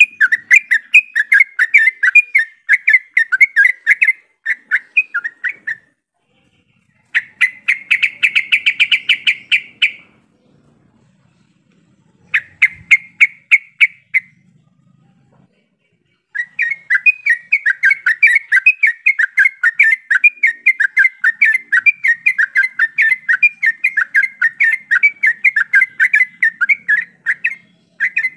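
Yellow-vented bulbuls (trucukan) in a group, chattering and singing in fast runs of short bubbly notes. The runs break off in pauses and start again, the lure recording used to get caged bulbuls singing.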